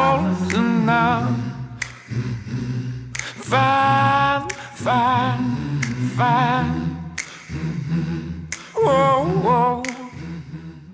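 Music: a solo voice sings long, wavering notes over a steady low drone, with a few sharp percussive hits. It cuts off abruptly at the end.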